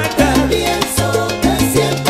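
Salsa music played by a band, with a bass line and percussion.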